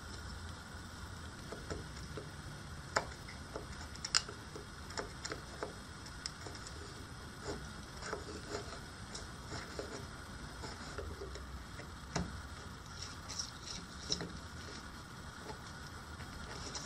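A small knife blade whittling and chipping a block of wood by hand: irregular small clicks, cracks and short scrapes as chips split off, with two sharper cracks about three and four seconds in, over a steady low hum.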